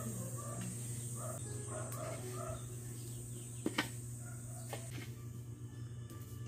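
Chickens clucking in short calls during the first half, with two sharp knocks a little past the middle from a shovel turning a heap of burning rice hull.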